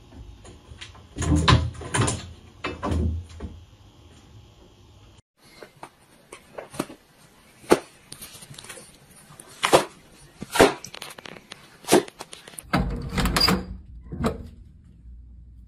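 A string of separate sharp knocks and thumps on hard surfaces, one every second or two, with a paper roll batted across a wooden floor among them. Near the end comes a short rattling burst of a round metal door knob being gripped and turned.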